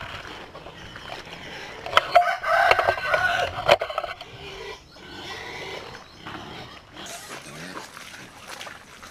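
A rooster crowing once, starting about two seconds in and lasting about two seconds.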